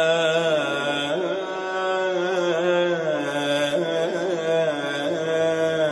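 A man singing an Arabic nasheed, drawing out the word 'al-jamal' in one long, winding melisma that bends up and down in pitch.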